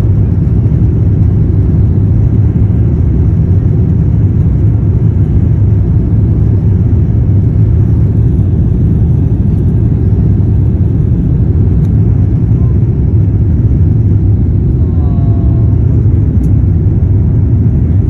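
Loud, steady low rumble inside the cabin of an Airbus A350-1000 during its takeoff roll and initial climb: its Rolls-Royce Trent XWB engines at takeoff thrust and the noise of the airframe.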